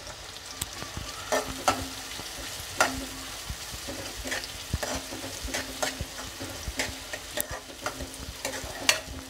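Sliced onions sizzling in hot oil, butter and ghee in a metal kadai, with a steel spoon scraping and clinking against the pan in irregular strokes as they are stirred. The onions are being lightly fried, still pale.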